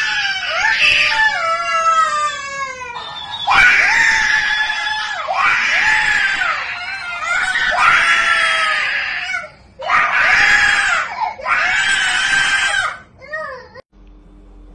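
A toddler screaming and crying in long, high, wavering wails, several bouts with short breaths between; the crying cuts off shortly before the end.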